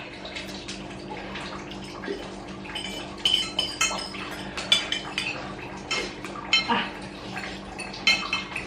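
Metal spoon and fork clinking and scraping against ceramic plates while spicy noodles are eaten, in a dozen or so short, ringing clinks at irregular intervals. A steady low hum runs underneath.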